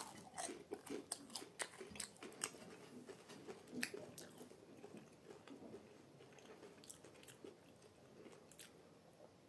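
A person biting into a nugget and chewing it: crisp crunching clicks over the first four seconds or so, thinning to fainter chewing after that.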